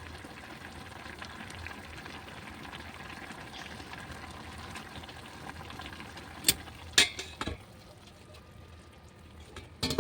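Noodles and vegetables cooking in a pot or pan with a steady hiss, then four sharp knocks of a utensil on cookware about six and a half seconds in.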